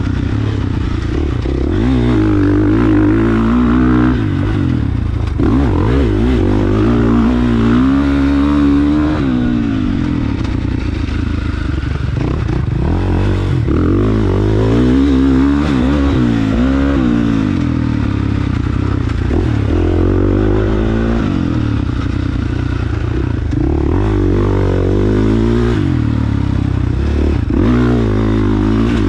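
450 motocross bike's four-stroke single-cylinder engine running under load on a dirt track, its revs rising and falling over and over as the rider accelerates and backs off through the turns.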